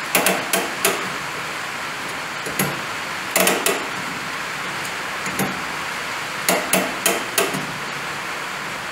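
Scattered knocks and clatter, then four evenly spaced ratchet clicks about two-thirds of the way in as the IH 484's parking brake lever is pulled up. Four clicks is the sign that the brake cable is adjusted right. Steady rain hiss runs underneath.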